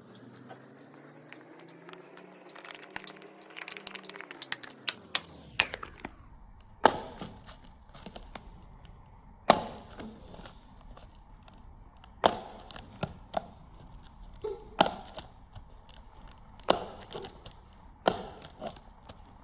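Packaging being handled: crinkling and tearing for the first few seconds, then sharp taps and clicks every two or three seconds as items are handled and set down.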